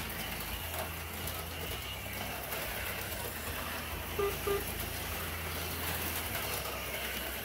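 HO-scale slot cars running laps on the track: a steady whir from their small electric motors over a low, even hum. Two brief short notes come about four seconds in.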